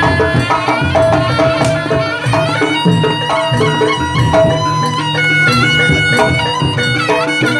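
Loud live Javanese jaranan music, with a reed wind instrument carrying a sustained melody over the ensemble's accompaniment.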